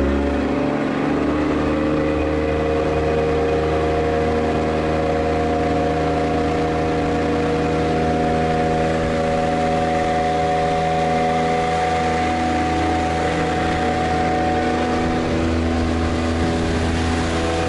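Motorboat engine speeding up in the first second, then running at a steady pitch under load. The boat is overloaded and will not get up on the plane, so it pushes slowly through the water.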